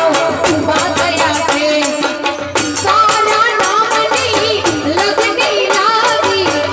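A woman singing a Gujarati folk song into a microphone, her melody wavering and ornamented, accompanied by harmonium and a steady, fast percussion beat.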